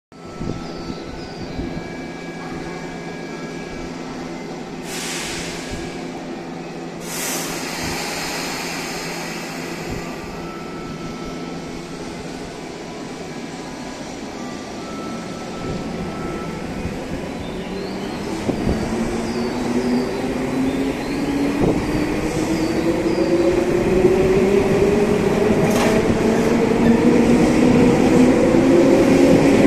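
Tobu Ryomo limited express electric train standing at the platform with a steady hum from its equipment and two short hisses of air. After about eighteen seconds it starts to pull away, and a rising whine from its motors grows steadily louder.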